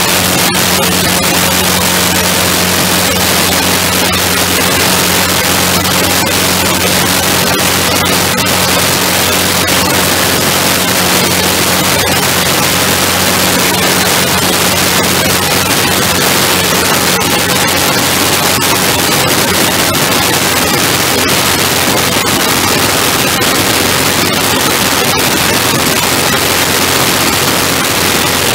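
Heavy, steady wind noise on the microphone over the drone of a ground-effect craft's engine and propeller under way. A low hum in the drone drops away about two-thirds of the way through.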